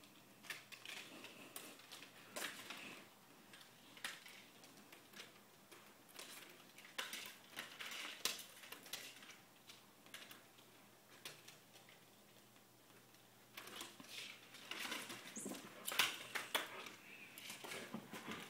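Belgian Malinois and a cat scuffling in play on carpet: irregular scuffs, patters and light taps of paws and bodies, busiest near the end.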